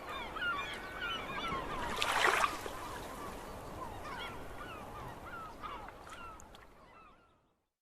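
A flock of birds calling, many short overlapping honking calls, with a brief rush of noise about two seconds in; the sound fades out near the end.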